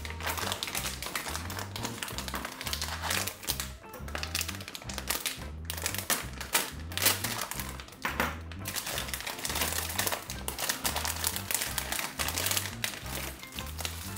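Plastic parts bags crinkling and rustling as they are handled and set down, over background music with a steady, repeating bass line.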